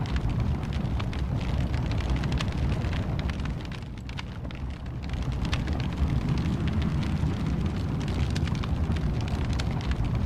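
Wood fire in a fireplace crackling and popping over a low, steady rumble of flame, dipping briefly quieter about four seconds in.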